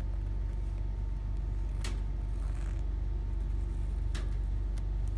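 Steady low hum in the room, with three faint ticks as a pen traces around a wooden template laid on leather.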